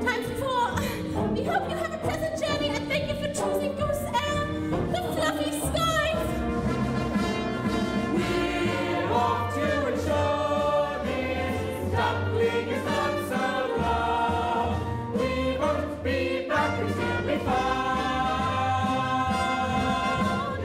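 Stage musical number: a chorus of voices singing with instrumental accompaniment, with long held chords near the end.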